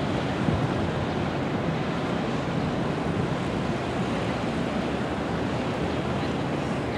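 Steady, noisy rumble of a GE C30-S7 diesel locomotive creeping up to a street grade crossing, mixed with the sound of cars and a motorcycle crossing the tracks.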